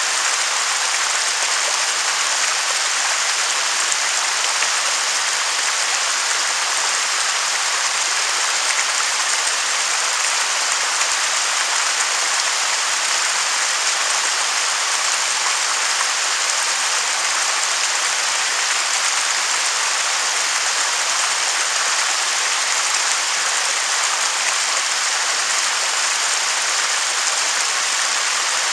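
Waterfall: a steady, unbroken rush of falling water, a bright hiss with little low rumble.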